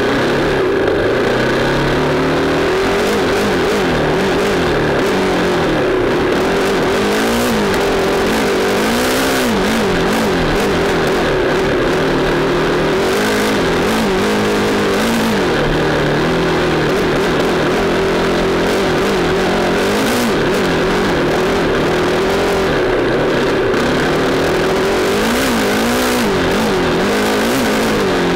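Dirt bike engine heard from on board while riding a trail, its pitch rising and falling every second or two as the throttle is opened and rolled off.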